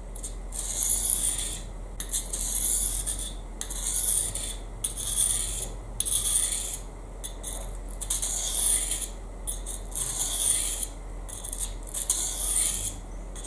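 A folding knife's blade drawn in repeated strokes across the diamond face of a hand-held Fallkniven DC3 pocket whetstone, a rasping hiss about once a second with short breaks between strokes.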